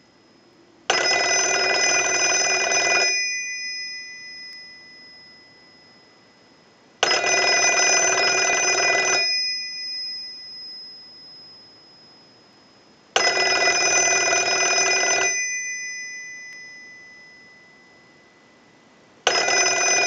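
Automatic Electric Monophone rotary dial desk telephone's bells ringing in on a test ring cycle, like an incoming call: four rings of about two seconds each, roughly six seconds apart, each ringing on briefly after it stops. The last ring is cut off at the end. The repaired ringer is working.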